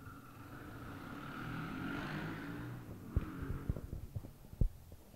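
A low rushing noise swells and fades, peaking about two seconds in. It is followed by a scatter of short, sharp thumps and knocks from a handheld microphone being handled and carried.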